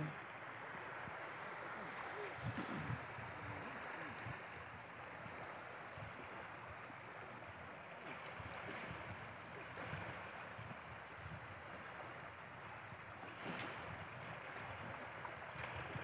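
Small waves washing steadily onto the gravel shore of a large reservoir lake, with wind.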